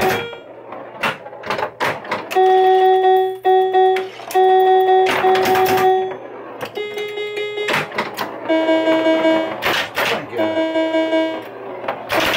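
Bally Fireball Home Edition pinball machine in play: sharp clacks of flippers and the ball hitting targets, with the game's steady pitched tones sounding in runs of short held notes.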